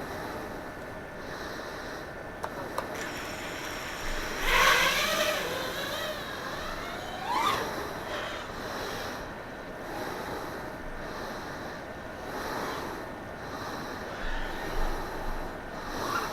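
FPV quadcopter's electric motors whining over a steady hiss. The pitch rises and falls with the throttle, loudest for a few seconds near the middle, where it ends in a sharp upward sweep.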